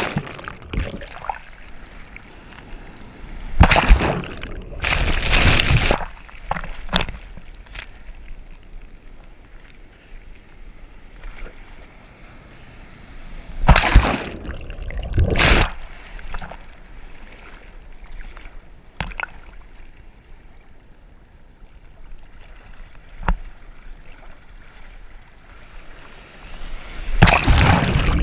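Sea water sloshing and splashing around a waterproof action camera in the surf: a quieter, muffled wash while it is under water, broken by loud splashing surges a few seconds in, twice about halfway, and again near the end.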